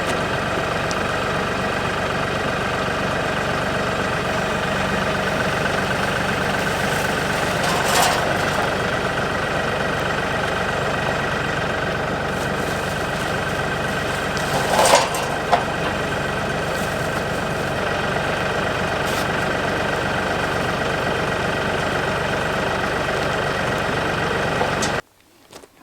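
Tractor engine running steadily at a low speed, with two brief metallic clanks, one about a third of the way in and another past halfway. The engine sound cuts off suddenly near the end.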